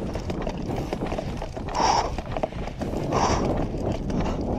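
Footsteps of players walking or jogging over rough ground, an irregular patter of steps, with two brief louder swells about two and three seconds in.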